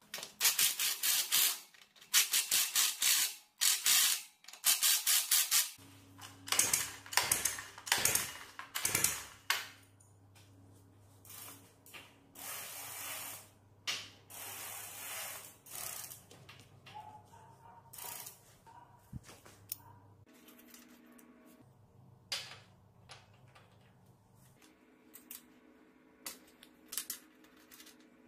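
Cordless power driver running in a series of short rattling bursts of a second or so each, driving bolts. Scattered metal clinks and knocks of hand assembly follow.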